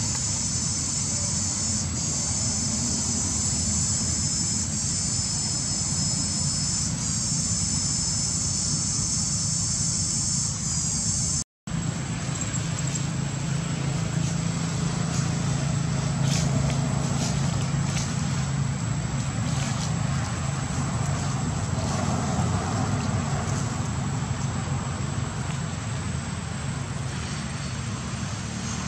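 Steady outdoor background hum, like distant motor traffic, with a high shrill buzz through the first half. The sound drops out for an instant at an edit cut about eleven seconds in, and a few faint clicks follow.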